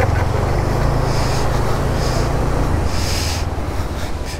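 Motorcycle engine running steadily while the bike rides over a slushy, muddy road, under a dense rushing noise with a few short hisses.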